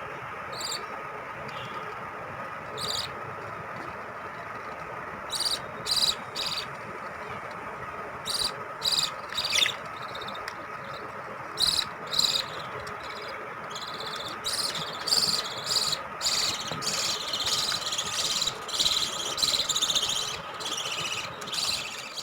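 Lovebirds chirping: short, high-pitched calls, scattered at first and coming thick and fast in the last several seconds, over a steady background hum.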